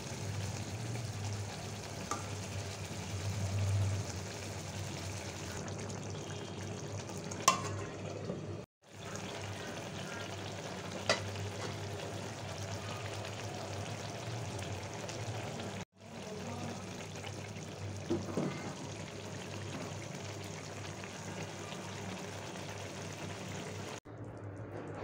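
Green-banana kofta curry bubbling and sizzling in a metal karahi, a steady hiss with a few short sharp pops. The sound cuts out briefly twice.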